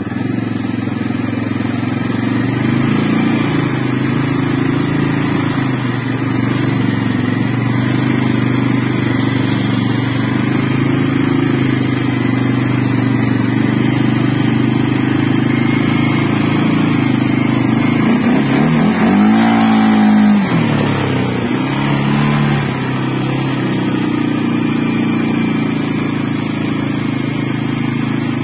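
CFMoto CF 600 ATV's single-cylinder engine running steadily under way on a dirt trail, with one rev that rises and falls back about two-thirds of the way through.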